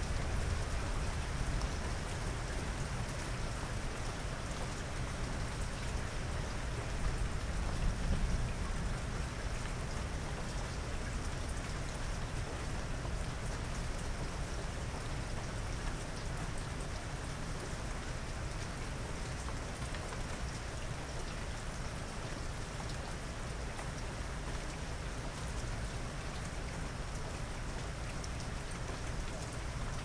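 Steady rain falling, an even dense hiss of drops hitting a surface, with a brief low swell about eight seconds in.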